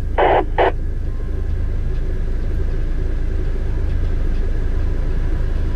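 Motor vehicle on the move: a steady low rumble of engine and road noise.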